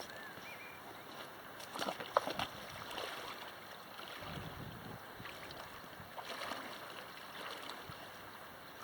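Steady rush of river water with wind on the microphone, and a brief cluster of sharp knocks or splashes about two seconds in.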